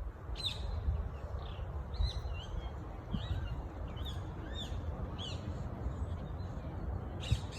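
Parrots calling in a tree: a run of short, high, arching chirps over the first five seconds or so, above a steady low rumble.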